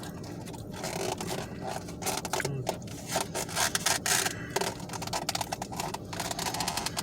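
Crackly rustling and crunching of eating and handling fried chicken and its packaging close to the microphone, in a rapid irregular run of small clicks that is busiest in the middle.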